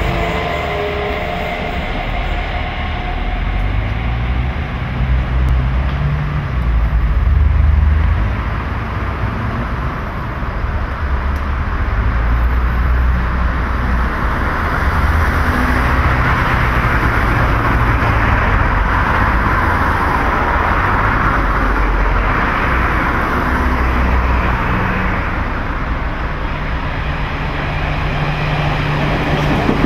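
Hamburg U-Bahn DT2 electric trains running on the track, with a steady low rumble throughout. In the second half the hissing rolling noise of an approaching train builds up.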